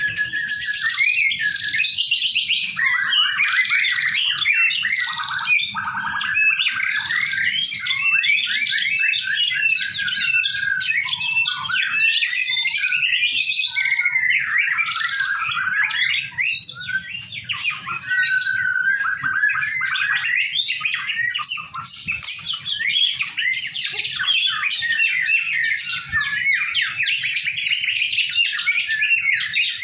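White-rumped shamas singing together without pause: rapid, varied whistled phrases from several caged birds overlapping into one continuous chorus.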